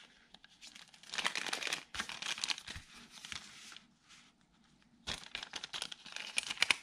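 A clear plastic packet of foam adhesive dots being handled and crinkled in irregular bursts, with a short lull about two-thirds of the way through.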